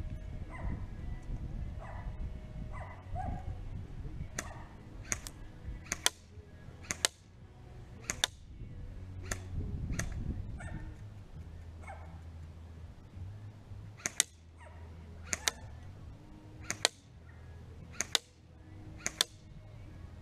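An H&K G36C airsoft electric rifle fired one shot at a time, each a sharp crack. About ten shots come roughly a second apart, in two strings with a pause of a few seconds in the middle.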